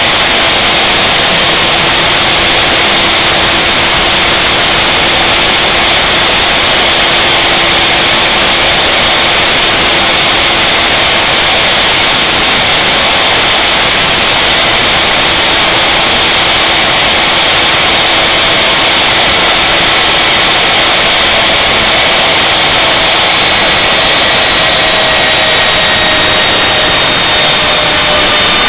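Wood router spindle on a CNC router table running at high speed while cutting a slot in a pine board: a loud, steady whine over a dense hiss.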